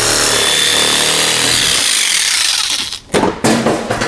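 Hand-held power tool cutting through the plastic bumper fascia. It runs steadily, stops about two seconds in and winds down. A few sharp knocks follow near the end.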